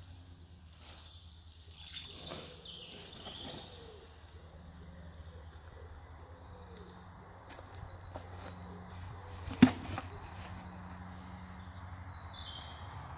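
Woodland birds chirping now and then over a steady low background hum, with one sharp knock about two-thirds of the way through.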